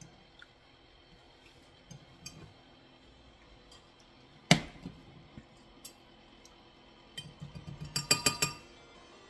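Metal mesh tea strainer knocked against a glass measuring cup to shake out wet loose-leaf tea: one sharp clink about halfway through, then a quick run of ringing clinks near the end.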